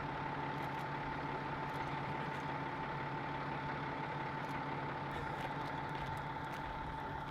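An engine or machine running steadily: a constant hum with a steady whine above it.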